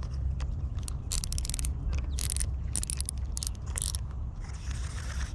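Fishing reel clicking and whirring in several short bursts, over a steady low rumble. A brief rushing noise follows near the end.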